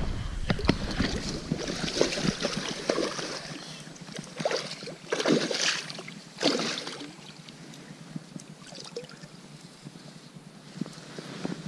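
A hooked sea trout thrashing and splashing at the surface of a shallow stream as it is drawn in and netted. The splashes are irregular, heaviest about five to seven seconds in, then give way to quieter water movement.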